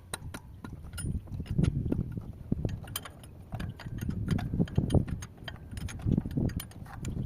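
Irregular metallic clicks, clinks and knocks of hand tools on engine parts, typical of fitting diesel injectors and their fuel lines.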